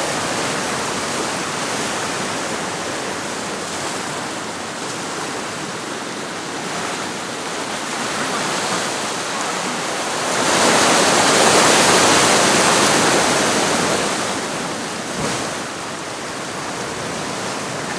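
Sea surf washing against rocks: a steady rush of water, with a bigger wave surging up about ten seconds in and falling away a few seconds later.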